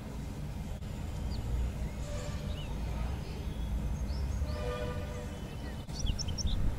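Background ambience: a steady low rumble with a few short, high bird chirps scattered through it, most of them near the end.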